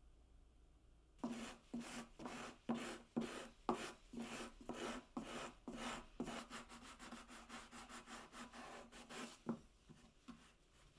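Sanding sponge block rubbed by hand along the edge of a shaped softwood hanger, smoothing the routed edge: a run of quick back-and-forth scrubbing strokes, about two a second, starting about a second in.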